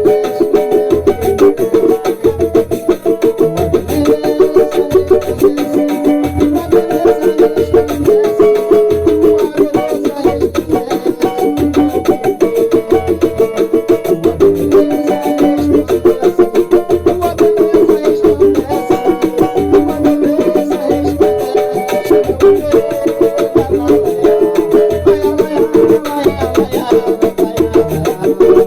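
Banjo picking a repeating strummed rhythm and melody, with a steady low beat about once a second underneath.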